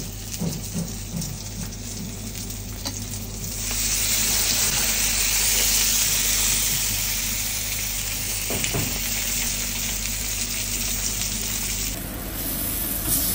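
A whole grouper (lagos) sizzling on a hot grill, a loud, steady hiss that starts about four seconds in as the fish goes onto the grate.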